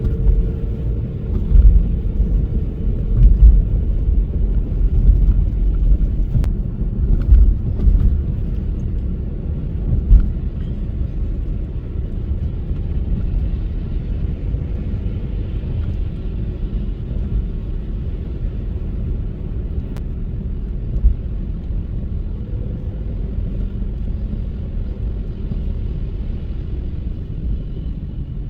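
Car driving on a snowy road: a steady low rumble of engine and tyres, with several heavy low thumps in the first ten seconds and one more later.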